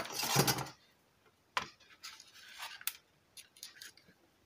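Handling noise from a home theatre amplifier board on its wooden base being lifted out of the speaker cabinet: a rustling scrape at the start, then a few sharp clicks and light knocks from the board, its wiring and the workbench.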